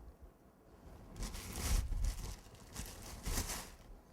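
Two bursts of rustling and rubbing, as hands roll and press a small piece of fondant.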